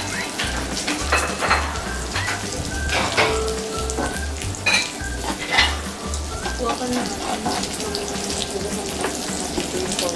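Pork belly slices sizzling on a tabletop grill pan, with short clinks of tongs and chopsticks against the pan and dishes. A low, regular beat runs underneath and stops about two-thirds of the way through.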